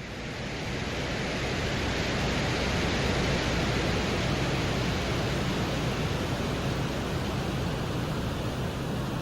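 Steady, deep rushing noise with a low rumble, like wind roar, which swells in over the first second or two and then holds even. It is presented as the Soviet Venera probe's microphone recording of the surface of Venus.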